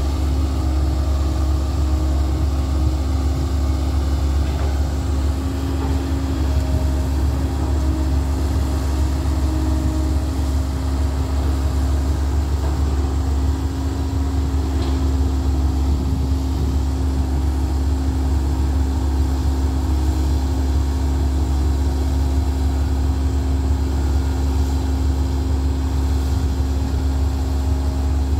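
Heavy diesel engines of a Komatsu hydraulic excavator and a dump truck running steadily: a loud, even, low rumble with a steady hum, no breaks or knocks.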